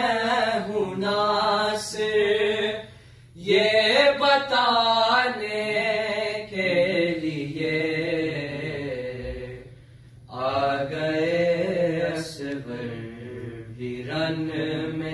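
Unaccompanied Urdu noha recited by young male voices: long, drawn-out melodic lines with held notes, broken by brief pauses about three seconds and ten seconds in.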